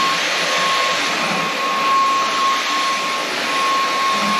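Inse S610 cordless stick vacuum running steadily while vacuuming the floor: an even rush of air with a steady motor whine through it.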